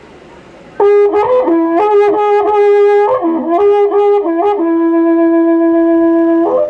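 Cacho (waqra puku), a cow-horn trumpet, played: after a short pause it sounds a phrase of quick changes between a few notes, then holds one long low note that stops abruptly near the end.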